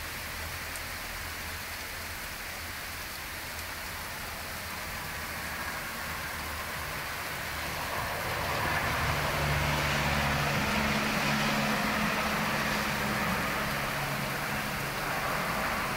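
Steady hiss during a snowfall, with a motor vehicle's engine hum and tyre noise on the snowy road swelling about halfway through and easing off near the end.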